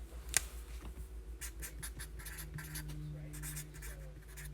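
Hands handling trading-card packaging: a sharp click about a third of a second in, then quick, irregular scratching and rustling of cardboard and plastic wrap.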